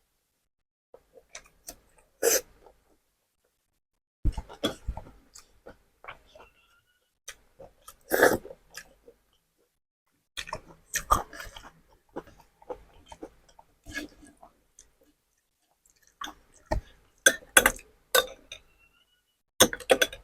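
Close-miked chewing of beef tapa and egg, in short crackly bursts separated by quiet pauses.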